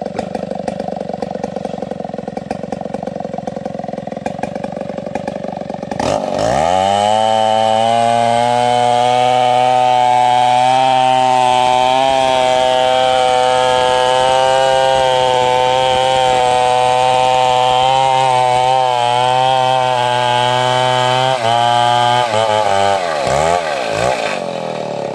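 Stihl 070 chainsaw's large single-cylinder two-stroke engine idling. About six seconds in it is opened to full throttle and held at steady high revs while ripping a plank lengthwise from an ulin (Borneo ironwood) log. Near the end the revs waver and drop back to idle as the cut finishes.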